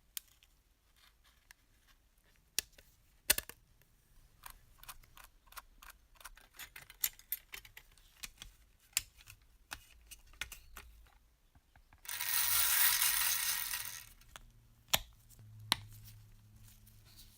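Small parts of a toy model bus clicking and tapping as they are handled and worked on, with a loud hiss lasting about two seconds about twelve seconds in, then a faint low hum near the end.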